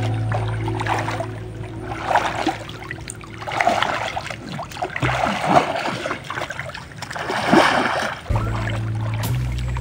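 Muddy shallow water splashing and dripping in uneven bursts as people wade and grope for fish by hand. Background music with steady low notes plays at the start and comes back near the end.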